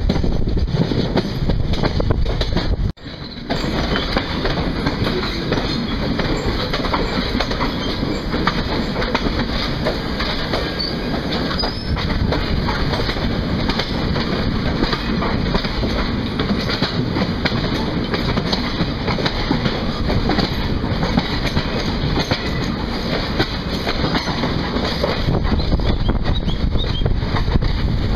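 Wind buffeting the microphone with train noise from a moving passenger coach, cut off suddenly about three seconds in; then steady wheel clatter over rail joints and points.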